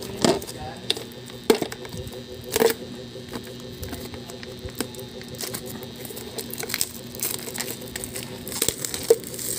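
Clear plastic wrapping being crinkled and peeled off a new plastic lunchbox by hand, with scattered sharp crackles and clicks over a steady faint hum.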